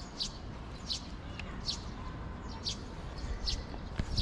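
A bird chirping: short high calls repeated about once a second, five in all, over a low steady background noise, with a single sharp click near the end.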